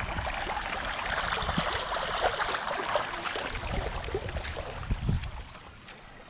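Water splashing and trickling, with small knocks. It is louder for the first few seconds and then eases off.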